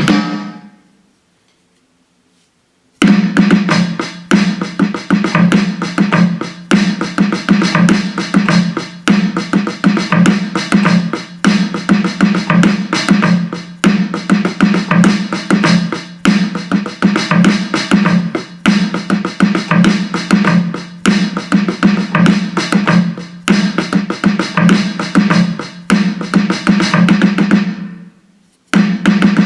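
Donner DED-50T electronic multipad playing a kit's sampled drum sounds: a fast, dense run of hits with a strong low pitched tone under them, starting after about two seconds of silence. It stops about a second before the end, and a single new hit follows.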